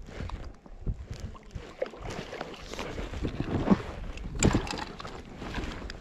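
Water splashing and sloshing close to the microphone in irregular splashes, loudest about three and a half to five seconds in.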